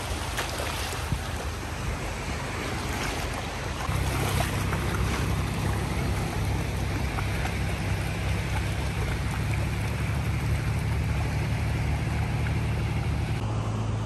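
Wind rumbling on the microphone over a steady rushing noise; the rumble grows stronger about four seconds in.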